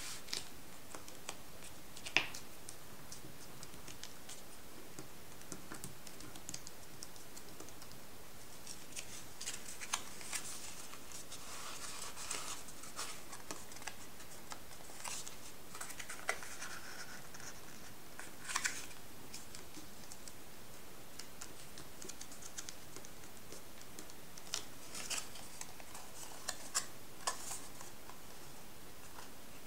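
Stiff paper, including metallised foil paper, being folded and creased by hand: rustling and crinkling with scattered sharp crackles, busiest a third of the way in and again near the end.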